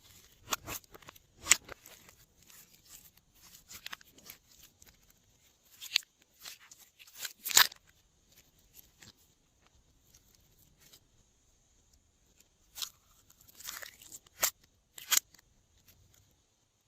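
Glossy slime being worked by hand, giving irregular sticky clicks, pops and short crackles, with a quiet stretch in the middle.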